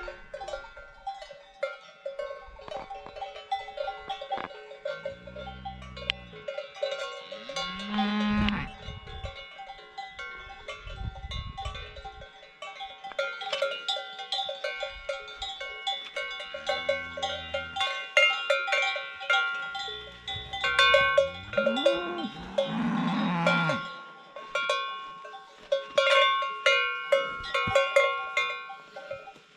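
Cowbells hung on grazing cattle clanking and ringing unevenly throughout, with several cows mooing, the loudest and longest moo a little past two-thirds of the way through.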